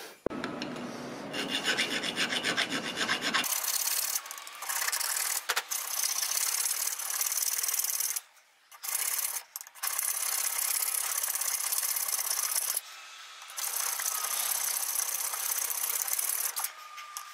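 Hand file rasping on steel in steady back-and-forth strokes, with a few short pauses. It is filing away a little metal to open up a fit that was slightly too tight.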